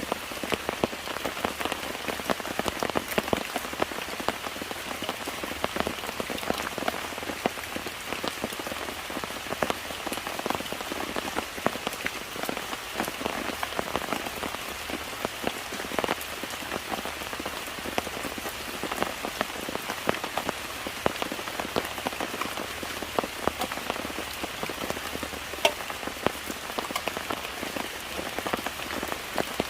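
Steady rain falling, with many sharp drops ticking on a nearby surface.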